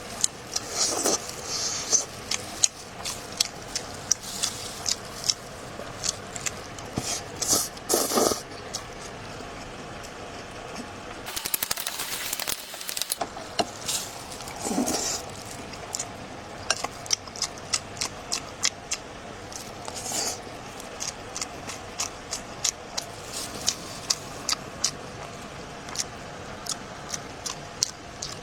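Close-up eating sounds: chewing with a steady run of wet mouth clicks and smacks, about two to three a second later on, and a short hissing burst about twelve seconds in.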